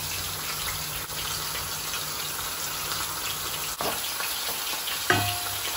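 Sliced onions sizzling in hot oil and ghee in a nonstick frying pan, a steady hiss. A wooden spoon starts stirring through them about four seconds in.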